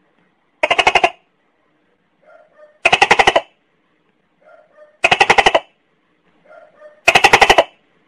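Tokay gecko calling: four loud calls about two seconds apart, each a quick rapid-fire run of pulses lasting about half a second, with a softer, lower note just before each of the last three.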